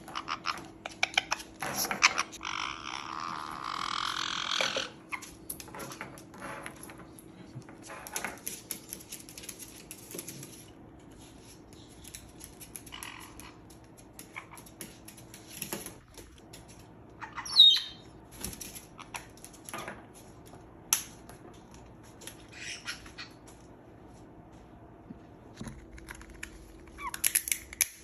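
Pet parrots' beaks clicking and crunching in scattered short cracks, typical of a parrot working open a nut, with one sharp squawk a little past the middle and a busier burst near the end.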